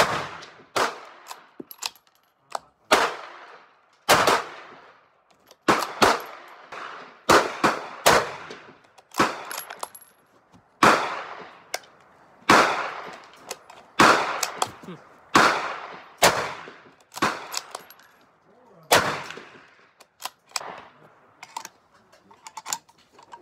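A string of gunshots, more than a dozen sharp cracks about one every one to two seconds, each trailing off in an echo.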